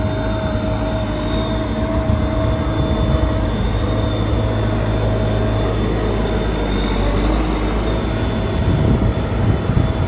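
JCB 214 backhoe loader's diesel engine running steadily, with a held whine over the low rumble. The sound turns rougher and a little louder near the end.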